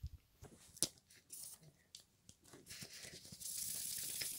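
Thin plastic sheets and film from an LCD monitor's backlight being handled: scattered light clicks and rustles, then a steady high hiss for the last second, like film being peeled or a sheet sliding.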